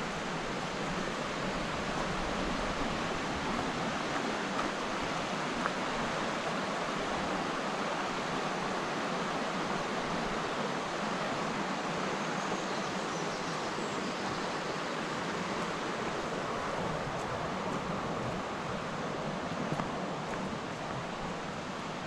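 The Vartry River rushing over rocks: a steady, even noise of fast-flowing water.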